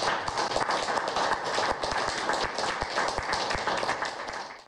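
Audience applauding: many hands clapping in a dense, steady patter that stops abruptly at the end.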